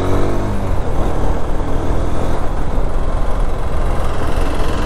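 Honda CB200X motorcycle on the move: the engine running under a heavy, steady low rush of wind on the microphone, its pitch rising briefly at the very start.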